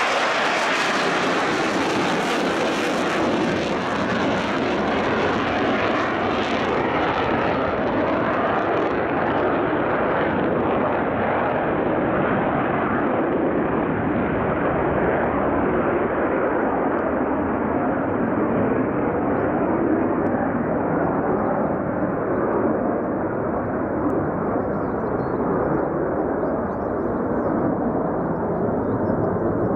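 Fighter jet engine noise, loud and steady, its hiss slowly dulling as the jet draws away.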